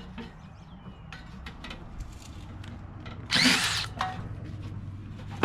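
Power drill backing bolts out of the sheet-metal cover on an AC unit's squirrel-cage blower. There is one short loud spin about three seconds in, amid small clicks of tool and metal, over a steady low hum.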